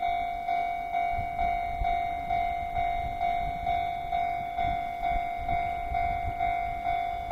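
Japanese level-crossing warning bell ringing its steady electronic clang, about two strikes a second, each fading before the next. Wind is buffeting the microphone underneath.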